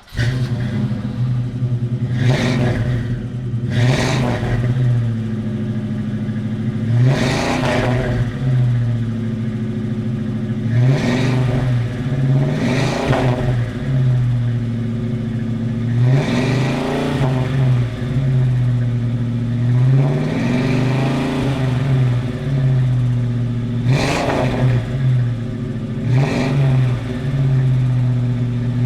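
American muscle car's engine idling through its exhaust and being revved over and over, the pitch rising and dropping back about a dozen times.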